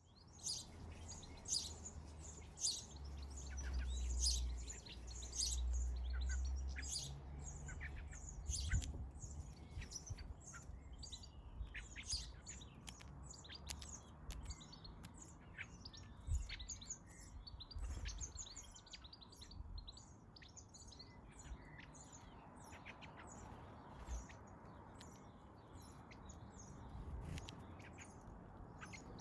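Garden birds chirping at a feeder, many short chirps in quick succession. A low rumble sits under them for the first nine seconds or so.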